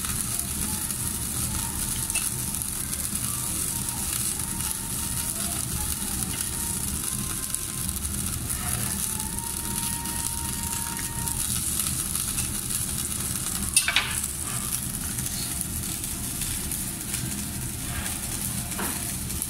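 Meat sizzling on the wire mesh of a tabletop yakiniku gas grill, a steady hiss with a low hum beneath it. A single sharp click about fourteen seconds in.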